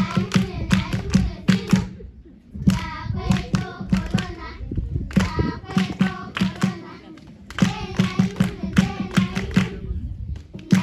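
A group of people singing together while clapping their hands in a steady rhythm, with short breaks between phrases.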